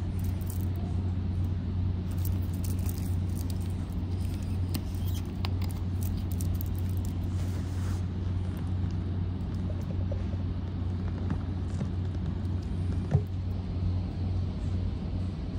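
Steady low hum of the ferry's engines and onboard machinery. Light plastic crackles in the first half as a small drink bottle's cap is twisted off, and a single sharp click a little before the end.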